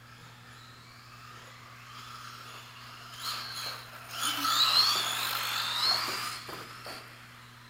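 Radio-controlled rally car's electric motor whining as the car drives past close by. The whine builds, is loudest a little past the middle, shifting in pitch as the car speeds and turns, then fades away.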